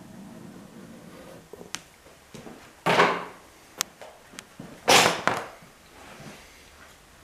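Handling noise: a few sharp clicks and two loud, short swishes about two seconds apart, each fading quickly, over a faint steady hum at the start.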